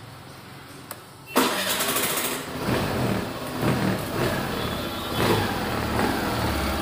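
Suzuki Burgman Street 125 BS6 scooter's 124cc air-cooled four-stroke single-cylinder fuel-injected engine starting on the electric starter about a second and a half in, then running steadily, its level swelling a few times.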